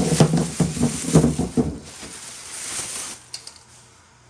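A low wordless voice for the first couple of seconds, then a rustle of packing material and a few light clicks as chert pieces are handled.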